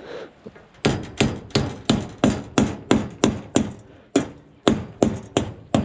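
Hammer striking a nail in a timber wall frame about fourteen times at roughly three blows a second, driving it halfway in at an angle and bending it over against a metal bracing strap to pull the strap tight. The blows start about a second in, with a brief pause near four seconds.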